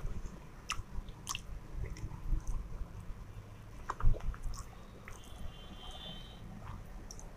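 Close-miked chewing and wet mouth smacks of a person eating vegetable fried rice by hand, with scattered small clicks. One louder thump comes about four seconds in.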